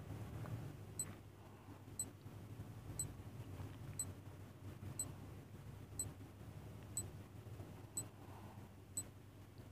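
Countdown timer sound effect ticking once a second, short sharp ticks over a faint low hum.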